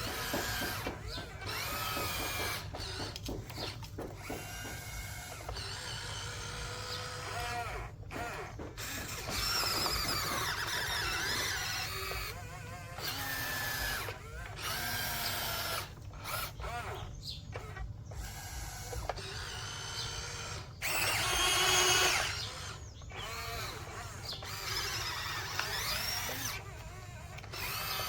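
Small electric motors of radio-controlled toy construction vehicles whining in short runs, rising and falling in pitch as they start, speed up and stop. The loudest run comes a little past two-thirds of the way through.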